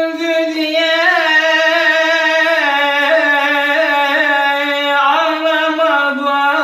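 A man singing unaccompanied, holding one long note of a Turkish folk lament with small wavering ornaments, the pitch stepping down a little near the end.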